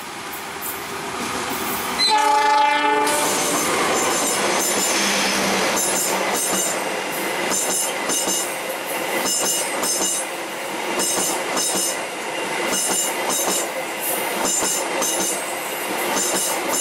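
A passing Gajayana express train: its diesel locomotive sounds a horn blast for about a second, two seconds in, then the carriages pass close by with regular clickety-clack of the wheels over the rail joints.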